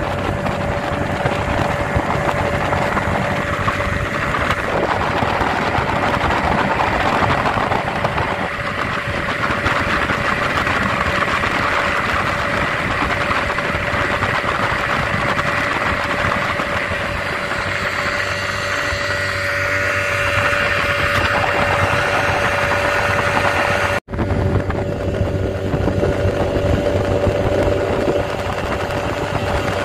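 Small motorboat's engine running steadily under way, one steady droning note over rushing water and wind. The sound cuts out for an instant about four-fifths of the way through.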